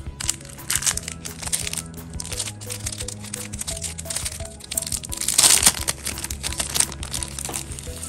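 Clear plastic bags crinkling as they are pulled from their packet and opened out, in many short crackles; the loudest crinkling comes about five and a half seconds in. Soft background music plays underneath.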